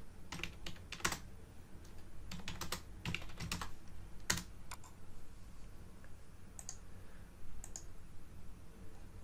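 Typing on a computer keyboard: a quick run of key clicks over the first few seconds, then one sharper click and a few scattered ones.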